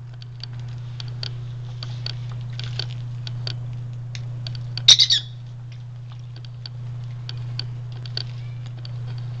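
Quaker parrot giving a short, loud burst of about three squawks about five seconds in, amid scattered small clicks and splashes of water as it bathes, over a steady low hum.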